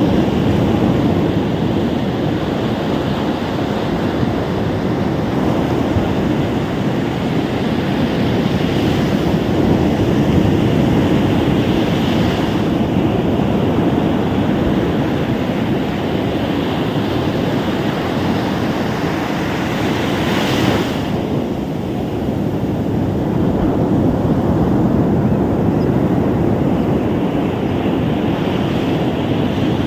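Ocean surf on a beach: a steady rush of breaking waves, with a few brief swells in the hiss as waves break, the clearest about two-thirds of the way through.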